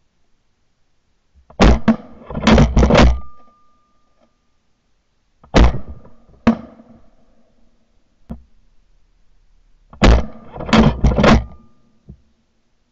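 Shotgun fire during a dove hunt: loud, sharp blasts with short ringing tails. They come in three quick clusters, about two seconds, six seconds and eleven seconds in, with a single shot between the second and third.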